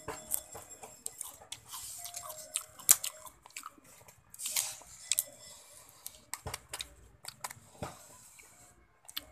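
A person chewing and biting food close to the microphone, with scattered sharp crunches and clicks.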